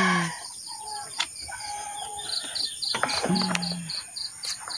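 Chickens clucking and calling in the background, over a high insect chirp that repeats about four times a second.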